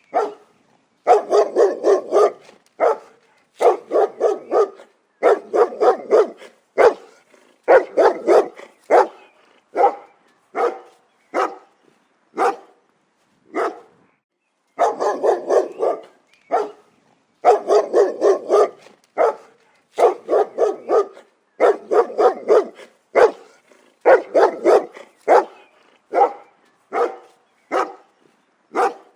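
A dog barking over and over, in quick runs of several barks with short pauses between, turning to single barks about a second apart near the end.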